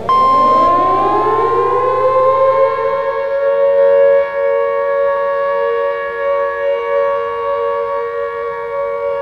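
Outdoor warning siren winding up, rising in pitch for about three seconds and then holding a steady wail, over a steady high-pitched alert tone.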